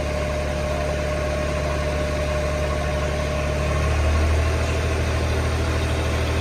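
Heavy diesel machine engine running steadily. About four seconds in, its note shifts and it gets a little louder.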